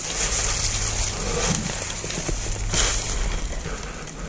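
Footsteps crunching and rustling through dry leaf litter and brush, with a low rumble of movement on the microphone.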